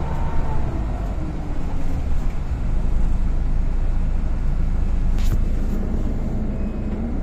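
Golden Dragon XML6125 city bus engine and Voith automatic drivetrain running under way, heard inside the cabin as a heavy low rumble. The engine pitch falls in the first second and starts to rise again near the end as the bus pulls through its gears. A short click about five seconds in.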